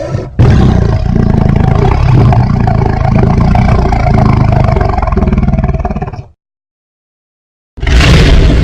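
Godzilla monster sound effect: a loud, dense sound heavy in the low end, lasting about six seconds and cutting off abruptly. After a second and a half of silence, another effect starts near the end.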